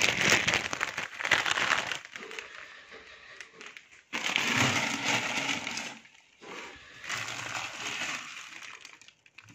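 Clear plastic bags crinkling and rustling as a hand opens them and handles the dried roots and seeds inside, in three bouts of a second or two each.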